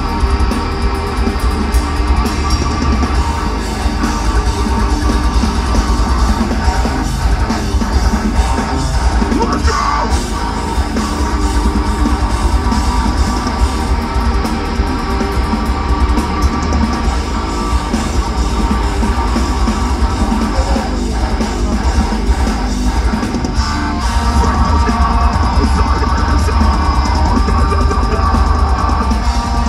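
Deathcore band playing live at full volume: distorted electric guitars, bass guitar and a pounding drum kit, heard from within the crowd with a heavy, boomy low end.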